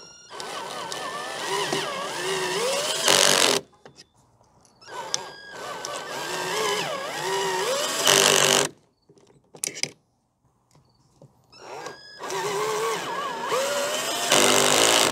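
Cordless drill driving stainless steel screws through an aluminium track rail into a soft aluminium boat gunnel, three separate runs. Each run rises in pitch as the motor spins up and ends in a short louder stretch as the screw goes home.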